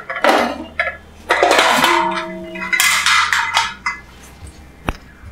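Metal idli plate stand clattering against the sides of a metal idli cooker pot as it is lifted out: three bouts of rattling in the first four seconds, one with a short metallic ring, then a single sharp click near the end.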